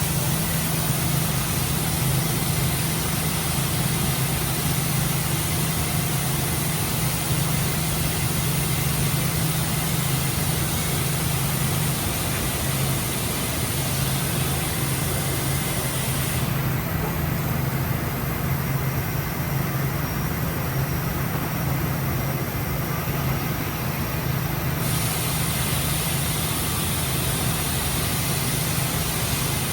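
Parpas Diamond Linear 5-axis gantry machining center running steadily, a constant low hum under an even hiss. The high hiss drops away for several seconds midway, then returns.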